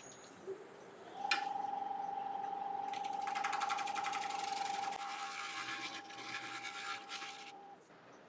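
Wood lathe running with a steady motor whine, while a negative rake scraper rubs across the inside of a yew bowl from about three seconds in, scraping away a tool mark. The whine stops near the end.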